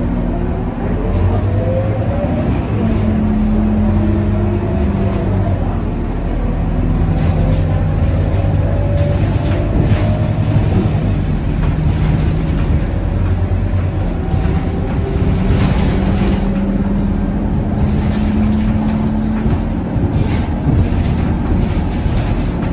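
Scania K230UB city bus heard from inside the passenger cabin, its rear five-cylinder diesel engine running as the bus drives along. Its pitch rises in the first couple of seconds, then steps up and down several times as the gears change, over a steady rumble from the road and body.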